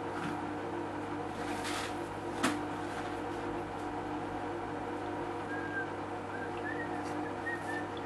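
Electric cutting tool's motor running steadily at one even pitch, with a few short bird chirps over it in the second half.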